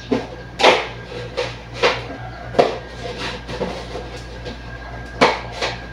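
Metal kitchenware clanking: a utensil or lid knocking against a metal cooking pot on the stove in several irregular clanks, over a steady low hum.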